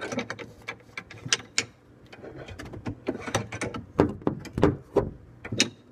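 Wrench tightening a brass compression fitting, a run of irregular metallic clicks as the tool grips and turns the nut.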